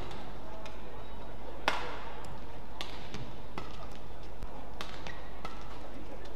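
Badminton rackets striking a shuttlecock in a doubles rally: a string of sharp, crisp hits about a second apart, some louder than others.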